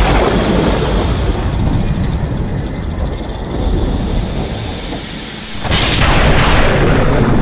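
Thunder: a long, loud rolling rumble, with a second sharp crack breaking in near the end.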